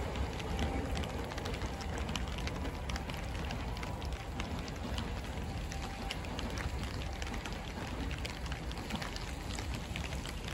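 Steady rain falling, with scattered drops ticking close by over a low steady rumble.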